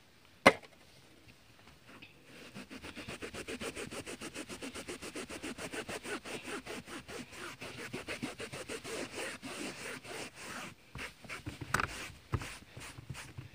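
A metal spoon scraped quickly back and forth over woven car-seat fabric, about six strokes a second, working vinegar-soaked slime out of the weave. The strokes slow and turn irregular near the end, with a couple of knocks, and a sharp click comes about half a second in.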